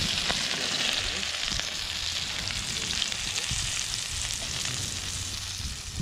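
Prawns frying in bubbling oil in a frying pan: a steady sizzling hiss with small crackles and pops.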